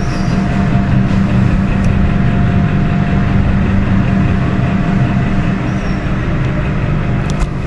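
A steady, loud low rumble with a faint steady hum above it, from a running motor or machinery.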